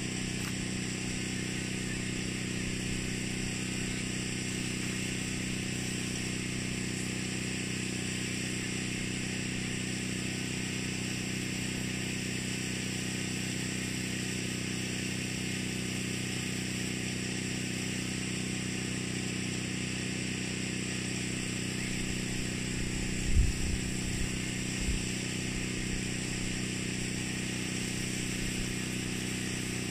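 A small engine or motor running steadily with an even hum and hiss, with a couple of low thumps a little over two-thirds of the way through.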